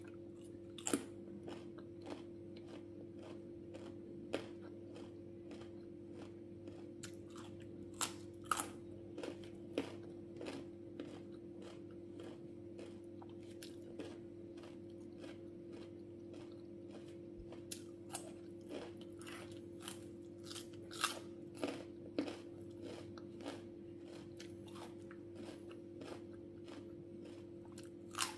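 Close-up eating of raw fruit and vegetable slices: crisp bites and wet chewing, heard as irregular sharp crunches spaced a second or two apart, over a steady low hum.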